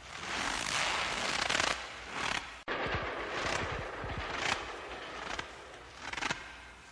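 Footsteps crunching in fresh snow, one step about every second, each a short grainy crunch. The sound drops out for an instant about a third of the way through.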